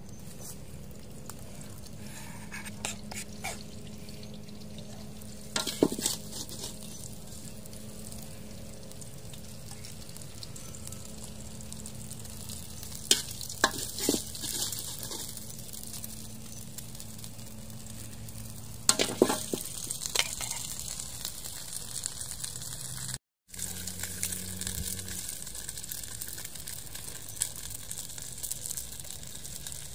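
Food sizzling steadily in hot oil in a wok while it is stir-fried, with a few sharp metal clinks from the spatula against the pan.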